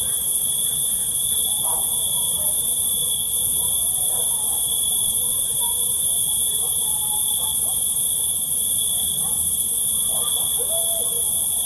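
Crickets trilling steadily in one even high-pitched tone that never breaks, over a higher continuous hiss of more insects, with faint short chirps from other animals lower down.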